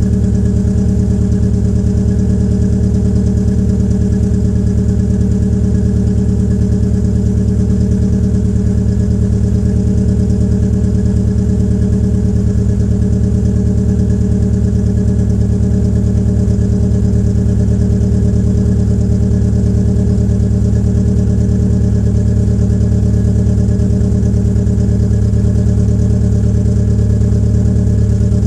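Peugeot 807's 2.0-litre EW10J4 four-cylinder petrol engine idling steadily but roughly from cold, its exhaust louder with the rear silencer removed. The rough cold idle is, as the owner takes it, the typical sign of tight valve lifters in these PSA EW engines.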